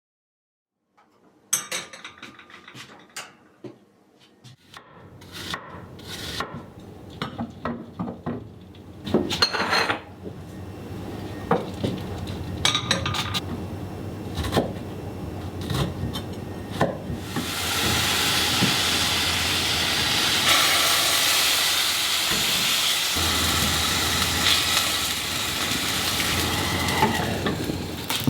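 Kitchen cooking sounds: dishes and utensils clinking and knocking, then a steady sizzle of food frying in a pan that starts a little past halfway and carries on.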